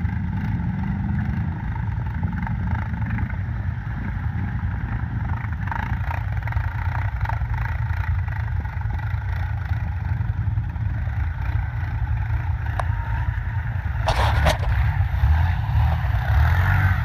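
Quad bike (ATV) engines running, one revving as it ploughs through deep water. Near the end it comes close and gets louder, with water splashing around it.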